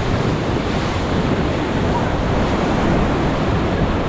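Rushing whitewater of a Ganges rapid around the raft, a loud steady wash, with wind buffeting the microphone.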